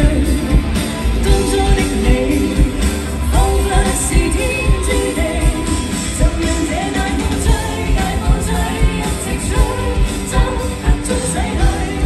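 Live pop-rock song: two female singers singing over a band with electric guitar and drums keeping a steady beat.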